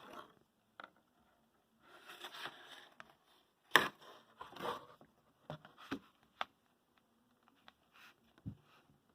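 Hands handling a RAM kit and its packaging: rustling and scraping, a sharp click about four seconds in, a few lighter clicks after it, and a dull knock near the end.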